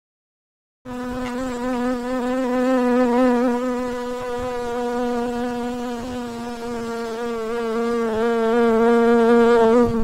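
Honeybees buzzing at an open hive, one flying close to the microphone: a loud, steady wing-beat drone with a clear pitch that wavers slightly. It starts abruptly about a second in.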